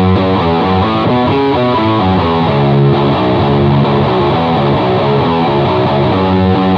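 Distorted electric guitar played through a Mantic Vitriol distortion pedal, a Gibson Les Paul Custom playing a heavy riff of quickly changing notes, with an electric bass underneath.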